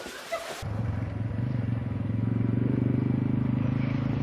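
An engine running steadily at an even speed, starting abruptly about half a second in.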